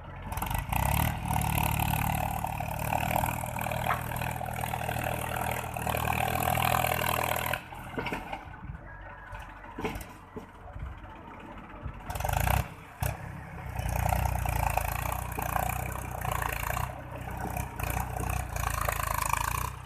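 Mahindra tractor's diesel engine working under load as it pulls a loaded trolley over rough ground, rising and falling in surges, with a quieter stretch about eight to twelve seconds in and a short burst of revs just after.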